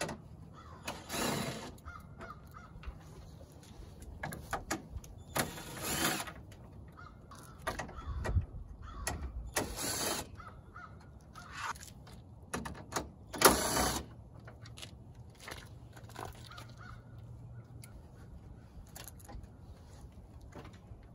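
Short clicks and knocks of a hand tool working the grille bolts and plastic clips on a Toyota Tundra, while a crow caws four times, once every few seconds.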